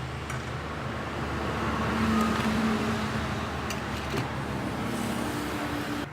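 Street traffic noise, with a motor vehicle passing that swells about two seconds in and then holds steady. A few light clicks are heard on top.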